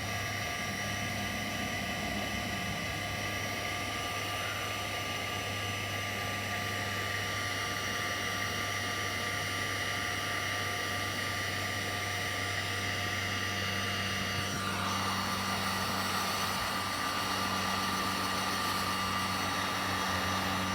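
Electric heat gun running steadily, used to melt and smooth scratches in a plastic boat hull: an even fan hiss with a steady motor whine, whose tones shift slightly about two-thirds of the way through.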